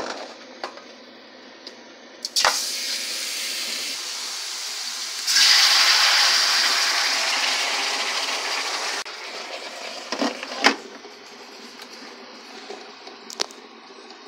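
A little water hitting a hot frying pan holding pork skin, hissing and spattering as it turns to steam. It grows louder about halfway, fades, then stops abruptly, with a few knocks of pan and lid.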